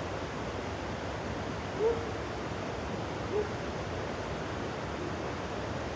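Steady rushing of a shallow river with rain falling, and two short low vocal groans from a person about two and three and a half seconds in, the first the loudest.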